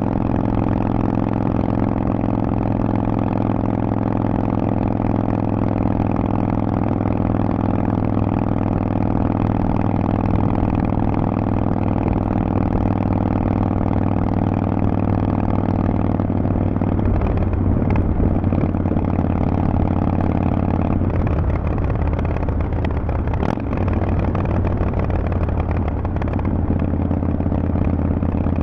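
Harley-Davidson Forty-Eight's air-cooled 1200 cc V-twin running through Vance & Hines exhaust pipes, holding a steady note for most of the first half. In the second half the engine note changes a few times, with a brief click about 23 seconds in.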